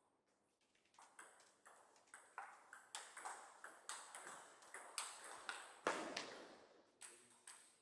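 A table tennis rally: the celluloid ball ticks back and forth off the rubber paddles and bounces on the Donic table in quick succession, with one sharper, louder hit just before six seconds in, after which the rally stops.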